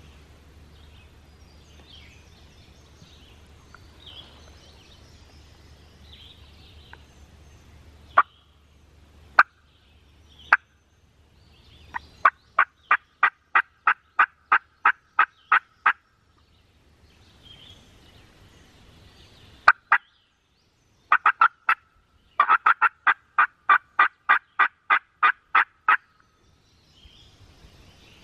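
Wild turkey calling: three single sharp clucks a second or so apart, then a long run of evenly spaced yelps at about five a second. After a pause come another cluck and a second, denser run of yelps. Faint songbirds chatter before and after.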